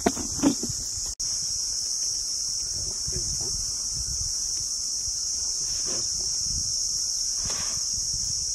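Steady high-pitched drone of an insect chorus over a low outdoor rumble, with two brief louder sounds right at the start and a momentary dropout about a second in.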